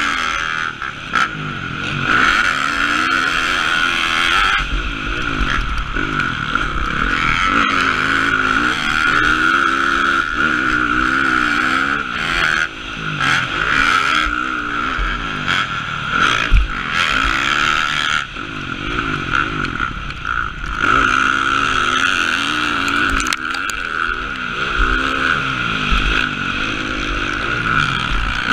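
Dirt bike engine ridden hard on a motocross track, its revs rising and falling again and again as the rider works the throttle over jumps and through turns, with wind rushing over the helmet-mounted camera. A single sharp knock comes about two-thirds of the way through.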